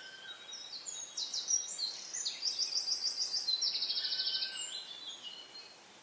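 A small songbird singing one long phrase of high, rapid notes and fast trills, lasting about five seconds.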